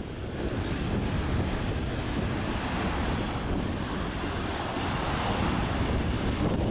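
Wind buffeting the microphone with a steady low rumble, over the wash of small waves breaking on the sea.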